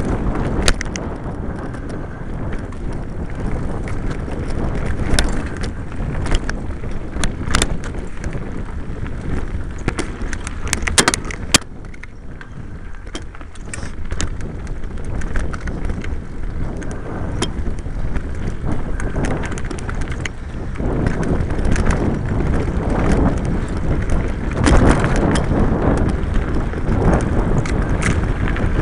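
Mountain bike running fast down a rough singletrack trail: continuous rattling and sharp knocks from the bike and camera mount over stones and roots, with tyre noise and wind on the microphone. It eases briefly about twelve seconds in.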